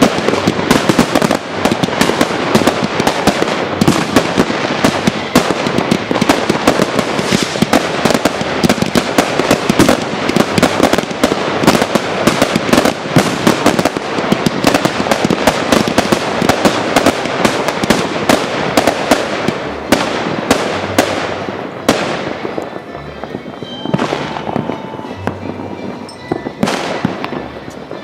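Fireworks going off in a dense, rapid barrage of crackling bangs that thins out after about 20 seconds to a few separate bursts.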